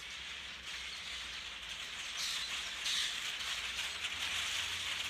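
A large flock of migrating blackbirds calling all at once, a dense, rain-like chatter of many overlapping calls that grows louder about two seconds in.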